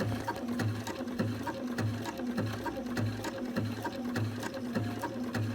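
Sewing machine running at a slow, even pace, sewing a zigzag stitch over a paraglider line, with a steady beat somewhat under two a second.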